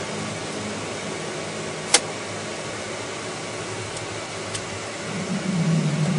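Steady cabin noise of a Dash 8 twin turboprop heard from inside the cockpit as it rolls along the ground. A single sharp click comes about two seconds in, and a low hum swells near the end.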